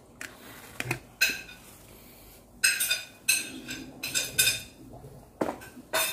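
Hard plastic casing of a Narada VRLA battery clacking and clicking as it is handled, a run of sharp knocks that comes in clusters with short gaps between.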